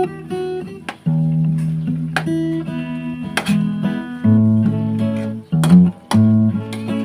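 Background music: strummed acoustic guitar chords, with a few brief breaks between phrases.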